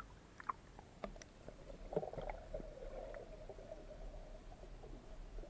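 Muffled underwater water noise around a submerged camera: a few sharp clicks, then steady bubbling gurgling from about two seconds in.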